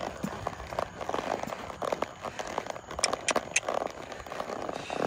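Hoofbeats of a ridden horse on soft arena dirt, heard as irregular muffled clicks and rustles, with a few sharper ticks about three seconds in.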